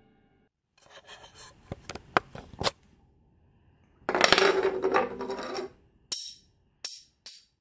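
Edited intro sound effects: a few scattered clicks and knocks, a loud burst of noise lasting about a second and a half around the middle, then a run of short, sharp metallic clinks.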